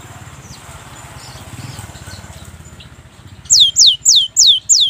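Cinereous tit (gelatik batu) singing a quick series of about five clear whistled notes, each sliding down in pitch, starting about three and a half seconds in. Before the song there is only a low, pulsing rumble.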